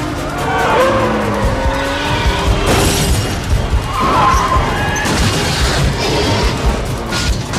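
Film car-chase soundtrack: car engines running hard and tyres squealing through skids, with crash impacts, over music.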